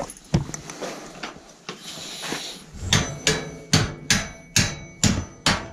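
Hammer driving a loose bolt back into a bicycle frame joint: a few light taps, then from about three seconds in a run of sharp metal-on-metal blows, two to three a second, each ringing briefly.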